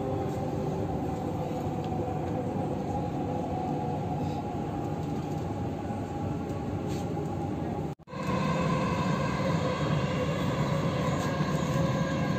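Dubai Metro train running between stations, heard from inside the car: a steady rumble with a steady whine. The sound cuts out for an instant about eight seconds in, then carries on slightly louder.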